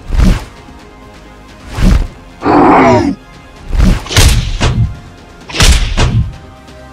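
Cartoon fight sound effects: a string of about five heavy thuds and whooshes, spaced a second or two apart, with a short wavering pitched sound about two and a half seconds in, over a faint music bed.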